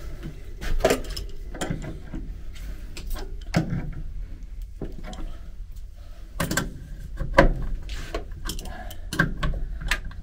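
Irregular metallic clicks and knocks of a wrench tightening a leaking water-pipe fitting on a railway passenger car's toilet plumbing; the joint is still seeping, likely from a worn gasket.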